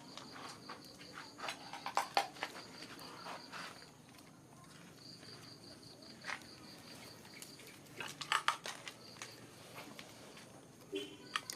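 Insects chirring in a steady, fast pulsing trill that breaks off briefly twice, with scattered clicks and rustles, clustered about two seconds in and again about eight seconds in.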